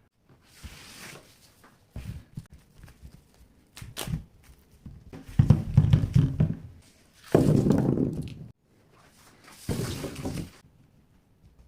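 A series of knocks, thunks and short scraping or rustling handling sounds from kitchen food preparation, the loudest about five and a half and seven and a half seconds in.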